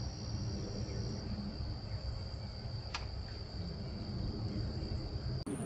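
Insects trilling in a steady, high, unbroken tone over a low rumble, with one sharp click about three seconds in.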